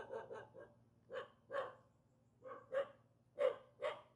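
A dog barking. A quick run of barks opens it, then the barks come in pairs, each pair about a second after the last.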